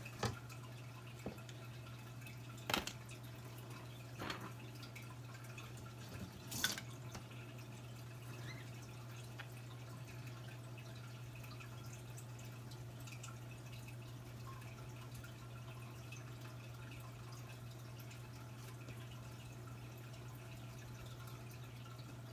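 A steady low hum with a handful of sharp clicks and taps in the first seven seconds, the loudest about six and a half seconds in.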